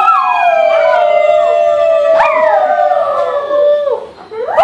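Small black-and-tan dog howling: long drawn-out howls that slide slowly down in pitch, with a second howling voice overlapping. A fresh howl starts about two seconds in. After a brief break near the end, another howl rises.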